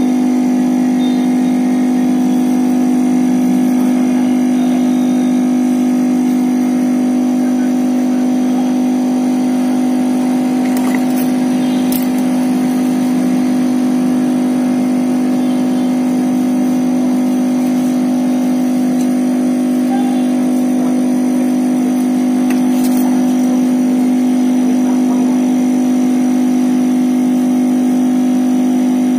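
A steady, loud machine hum: a low drone with a few fixed higher tones over it. Two faint ticks come about twelve and twenty-three seconds in.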